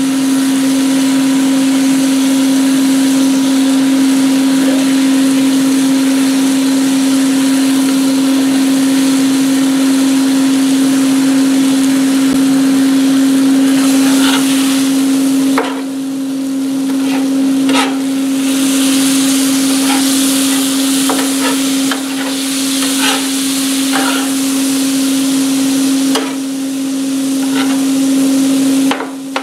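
Ground beef with peppers and onions sizzling on a Blackstone griddle's steel flat-top. About halfway through, a metal spatula starts scraping and chopping the meat against the plate in short, irregular strokes. A steady hum from the griddle combo's air-fryer fan runs underneath.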